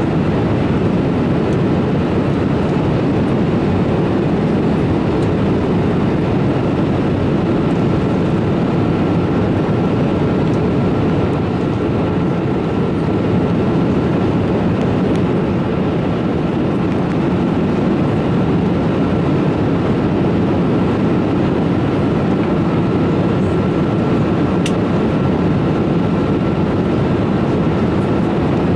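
Steady cabin noise of a Boeing 787 airliner in flight: an even, loud rushing hum with a faint high steady whine running through it.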